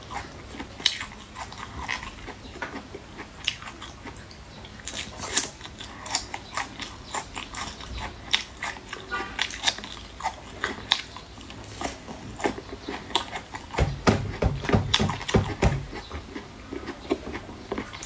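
Close-miked biting and chewing of chewy braised beef skin in chilli oil: a run of wet mouth clicks and smacks, with a louder stretch of deeper chewing sounds about fourteen seconds in.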